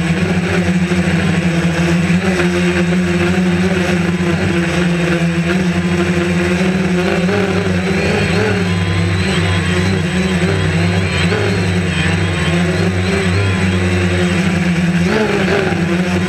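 DJI Phantom quadcopter's four electric motors and propellers buzzing steadily up close, heard from the camera mounted on the drone, the pitch wavering slightly as it manoeuvres.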